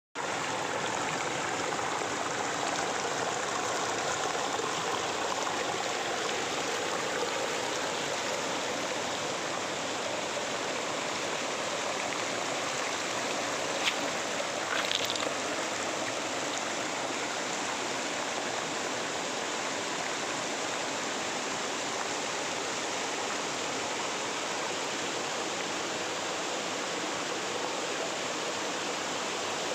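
A small river flowing: a steady rush of running water, with a couple of brief clicks about halfway through.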